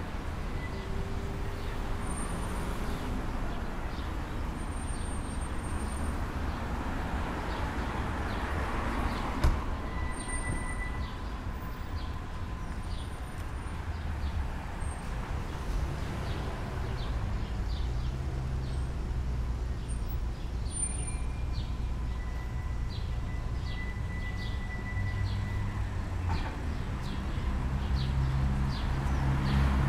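Street ambience: a steady low traffic rumble from passing and idling cars, with an engine hum growing louder near the end. The walker's footsteps tick faintly on the pavement about twice a second, and there is one sharp knock about nine seconds in.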